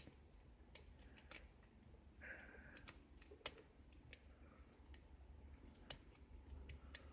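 Faint, irregular clicks and light scraping of a steel hook pick working the pins inside a 5-pin euro cylinder lock while tension is held with a pry bar, about one to two clicks a second.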